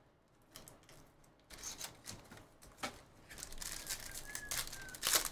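Clear plastic wrapper on a pack of trading cards being torn open and crinkled in the hands. The crackling starts about a second and a half in, grows busier, and ends in one loud sharp tear near the end.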